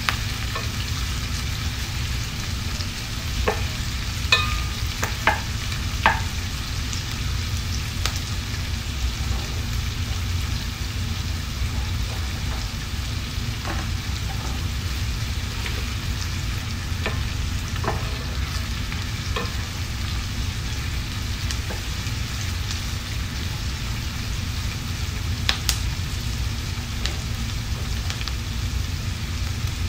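Chopped red onion, ginger and garlic sizzling steadily in hot oil in a stainless steel pan, over a steady low hum. A wooden spoon stirs them and knocks against the pan now and then, several times a few seconds in and a few more later.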